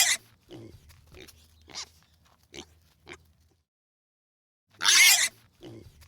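A pig gives a short, loud squeal, then a string of short grunts roughly every half second. After about a second of quiet it squeals again near the end and starts grunting once more.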